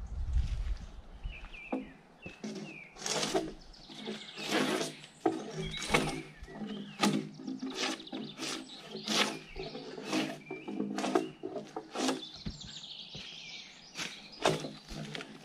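Gränsfors Bruks drawknife peeling bark off a log in strokes about once a second, each stroke with a hard breath or grunt of effort. Birds chirp in the background.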